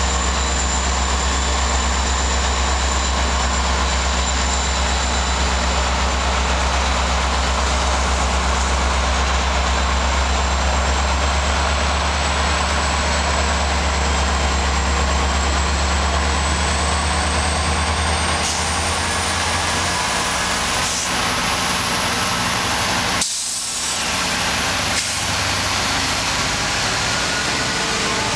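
GO Transit diesel-electric locomotives running at close range past the platform. A deep, steady engine hum drops away about two-thirds of the way through, while a high whine slowly rises in pitch. Near the end several engine tones climb together as the locomotive speeds up.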